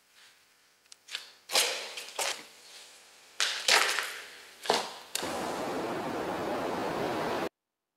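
Film sound-design hits: about eight sharp cracks, each trailing off in an echo, then a steady rushing noise that cuts off suddenly near the end.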